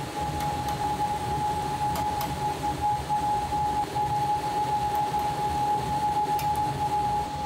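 Steady high whine and low rumble of kitchen machinery, with pork-bone broth pouring from a large kettle through a mesh strainer into a steel pot; a few faint clinks.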